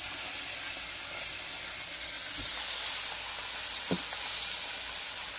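Battered chicken deep-frying in hot vegetable oil: a steady high sizzle with a couple of small pops, one about two and a half seconds in and a sharper one near four seconds.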